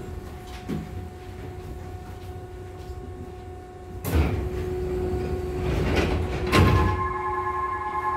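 Interior of a stationary Nishitetsu 600 series electric railcar. Low steady equipment hum, then two sudden hisses of compressed air from the car's pneumatic equipment, about four and six and a half seconds in. After the second hiss a steady whine of several tones sets in.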